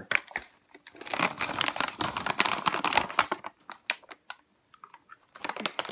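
Plastic candy bag of Caramel M&M's crinkling as it is handled and opened: a few seconds of dense crackling, then scattered single crackles.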